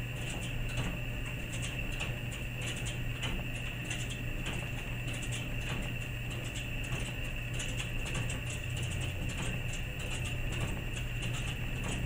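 Electric clothes dryer running: a steady motor hum with a thin high whine over it, and frequent light, irregular clicks.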